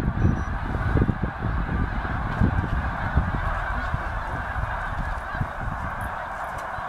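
A huge flock of snow geese calling all at once in flight, a steady, dense din of overlapping honks. Underneath it runs an uneven low thumping that eases off toward the end.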